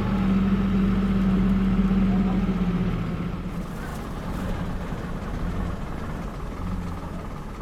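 Vehicle engine and road rumble heard from inside the cabin on a dirt road: a steady low hum that eases and gets quieter about three seconds in.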